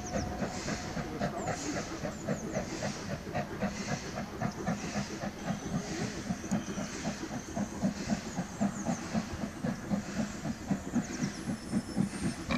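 LMS Black 5 two-cylinder steam locomotive pulling away, a steady run of exhaust chuffs with steam hiss. The beat quickens a little and grows slightly louder near the end as it gathers speed.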